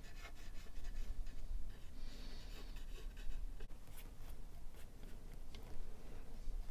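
Wood glue being squeezed from a bottle and spread over the wooden bass blank: soft scratchy rubbing with scattered light clicks and taps.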